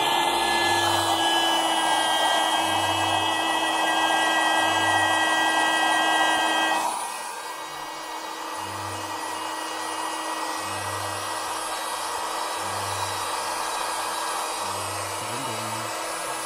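Electric air pump, the kind that plugs into the car, running steadily with a motor whine and a rush of air as it inflates an air mattress. About seven seconds in the sound drops noticeably and the pump carries on more quietly.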